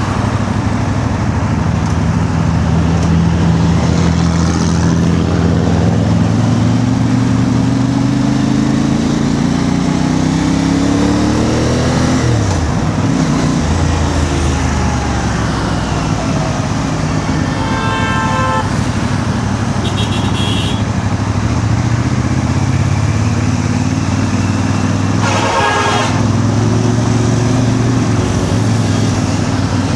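Motorcycle engine, the CF Moto 450 MT's parallel twin, running under way. Its pitch rises steadily as it accelerates, then drops sharply about twelve seconds in at a gear change. Vehicle horns honk briefly three times in the second half.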